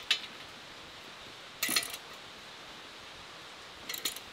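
Steel pin clinking against a steel backhoe attachment's pin brackets as it is worked into the holes: a short clink at the start, a louder metal clank about a second and a half in, and a few small clinks near the end.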